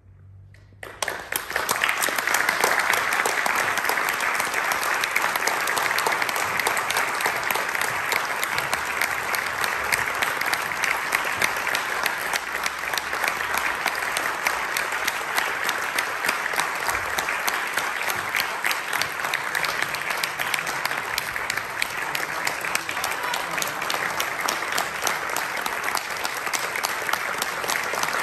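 Audience applauding: after about a second of quiet, clapping breaks out suddenly and goes on steadily.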